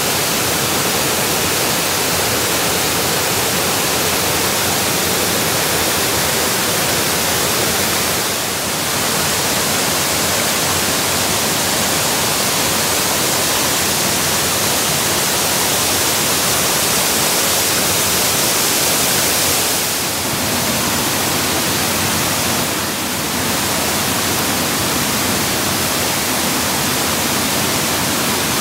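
Mountain stream water flowing loudly and steadily, an even hiss with a few brief dips in level.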